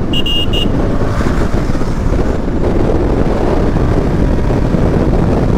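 Wind buffeting the microphone of a KTM 250 Adventure motorcycle riding at road speed, with its single-cylinder engine running underneath. A brief high double beep sounds right at the start.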